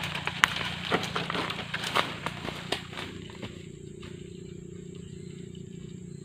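Footsteps crunching and rustling through dry grass and twigs, a quick run of crackles and snaps close by that die away after about three seconds, leaving a faint steady background drone.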